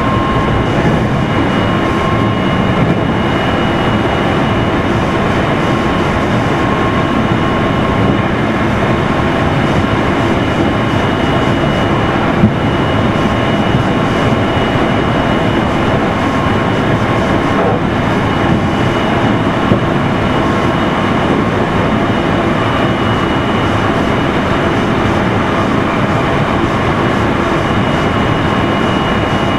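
Meitetsu 3100 series electric train car Mo 3212 running at speed, heard from on board: a steady rumble of wheels and traction motors with a faint, steady whine that fades in and out, and a couple of light knocks near the middle.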